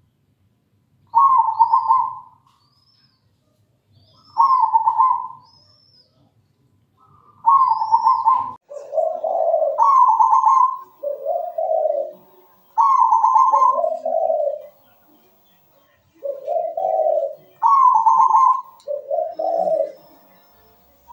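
Local zebra dove (perkutut) singing: two single rolling coo phrases, then from about a third of the way in a steady run of phrases that alternate between a higher and a lower coo. Faint high chirps from another small bird are heard in the first part.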